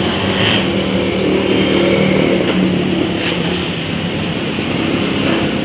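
Steady running of a motor vehicle engine close by, with road-traffic noise.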